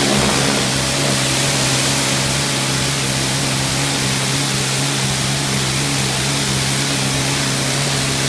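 High-pressure washer jet hissing steadily as it sprays a cultivator's metal frame, over a steady low hum.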